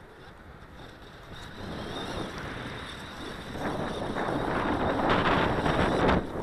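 Wind buffeting the microphone as a rough, unpitched rumble. It builds over the first few seconds and drops off abruptly near the end.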